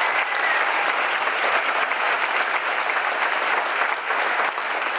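A large theatre audience applauding, many hands clapping at once in a dense, steady patter.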